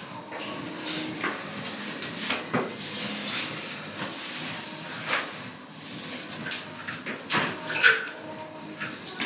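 Clothes rustling and being handled as a person undresses and changes clothes, with irregular soft knocks and clicks; the sharpest knock comes about eight seconds in.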